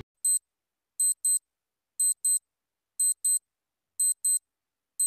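Countdown-timer clock sound effect: short, sharp, high-pitched electronic ticks in pairs, one pair each second, with silence between.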